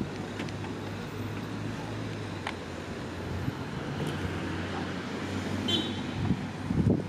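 Steady low mechanical hum from the Peugeot 308 CC's folding hardtop mechanism, set going by the remote key, with a few faint clicks. Wind buffets the microphone near the end.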